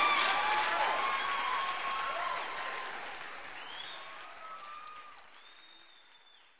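Crowd applauding, with a few voices calling out over the clapping, fading away steadily.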